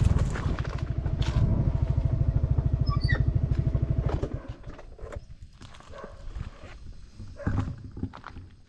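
Small motorcycle engine idling with an even, fast pulse, then switched off about four seconds in. Scattered light clicks and steps follow.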